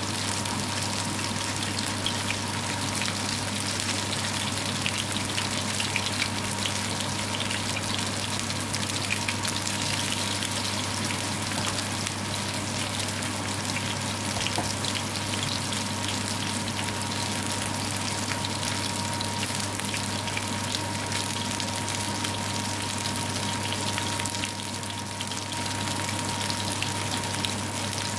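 Mince-meat kebab patties shallow-frying in hot oil in a pan: a steady sizzle full of small crackles and spits, over a low steady hum and a thin steady tone. The sizzle dips briefly near the end.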